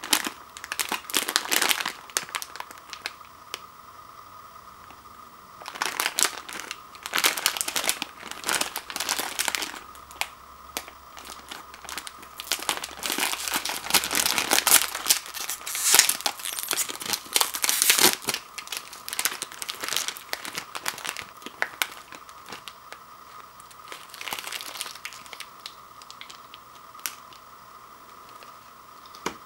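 Plastic instant-ramen packet crinkling as it is handled, torn open by hand and its noodle block and sauce sachet pulled out, in irregular bursts of crackling with short pauses between.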